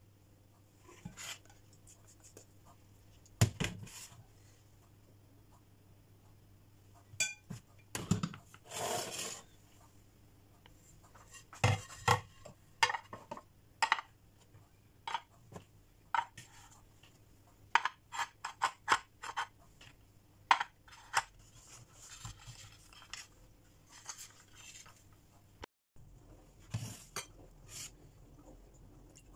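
A metal spoon scraping and clinking against small glass dessert cups as cream is spooned in, and glass cups being set down, in a series of scattered clinks and knocks with a longer scrape about nine seconds in.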